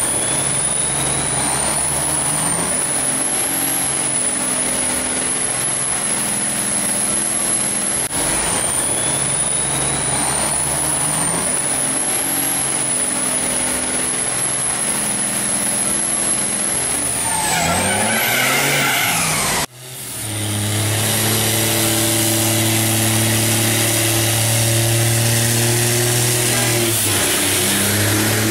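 Diesel race truck engine running at high revs during a tyre-smoking burnout, loud and steady, with a high whine over it. The sound is cut off abruptly twice, about a third of the way in and again about two-thirds in.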